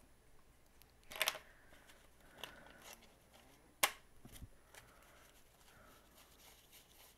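Plastic clicks and taps of a marker being put down among other markers, the loudest a single sharp click nearly four seconds in, followed by a soft rustle of paper dollar bills being picked up and handled.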